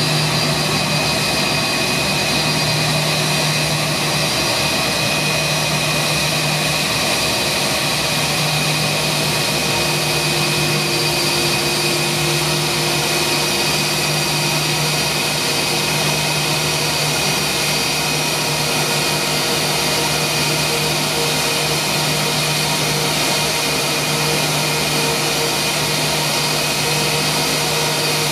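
Airbus A320's IAE V2500 turbofan engines running at idle with a steady high whine and hum as the airliner taxis in.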